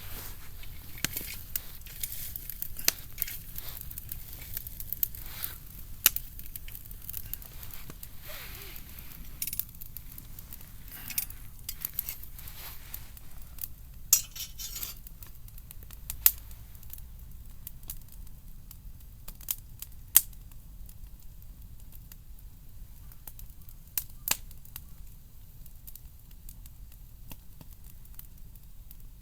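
Wood fire crackling, with irregular sharp pops, a few of them much louder than the rest.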